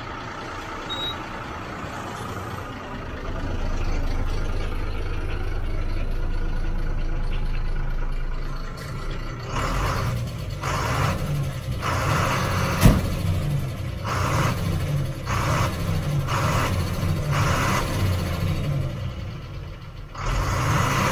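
Ashok Leyland truck diesel engine idling, run to build up air pressure for the lift-axle air suspension. About halfway through the steady running turns into a regular series of pulses, the engine note wavering with each one, and there is one sharp click.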